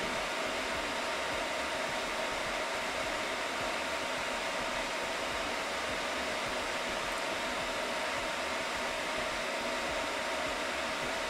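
Cooling fans of rack-mounted servers running with a steady whir, a few faint steady tones audible in it.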